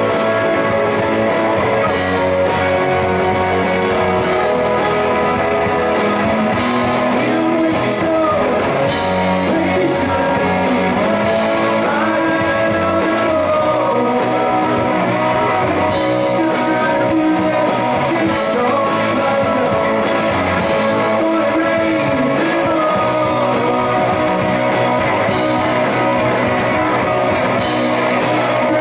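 Live rock band playing acoustic and electric guitars, with a man singing lead over a steady strummed accompaniment.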